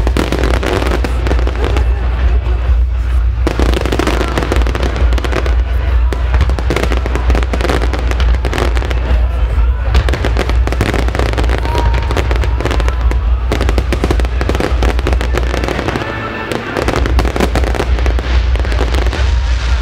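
A dense fireworks barrage: many shell bursts and crackles overlapping in rapid succession over a heavy low rumble. It eases briefly about three-quarters of the way through, then builds again.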